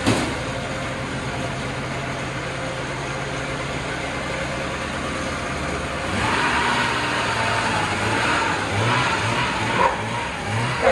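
Vintage Ski-Doo TNT snowmobile's two-stroke engine running at a steady idle, then revving louder and unevenly about six seconds in as the sled pulls away, with short throttle blips near the end.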